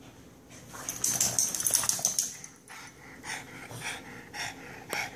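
A Shih Tzu and a Boston terrier play-fighting. About a second in there is a loud burst of scuffling dog noise lasting about a second and a half, then short breathy sounds about twice a second.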